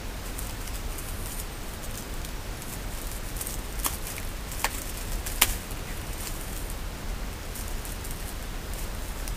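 A crinkly silvery packet handled by gloved hands, giving faint crackles, with three sharp clicks about halfway through, over a steady hiss.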